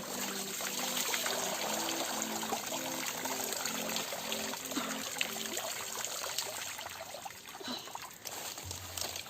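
Water trickling and splashing in a steady, dense dribble. A slow background melody plays under it and stops about five seconds in.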